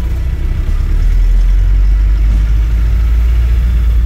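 Lifted VW Beetle running on a Daihatsu Taft chassis and engine, driving slowly past with a steady low engine rumble that swells about a second in.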